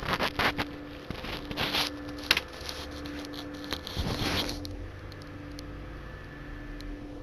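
Plastic DVD cases and packaging being handled: scattered clicks, knocks and rustling, busiest in the first half and again around four seconds in.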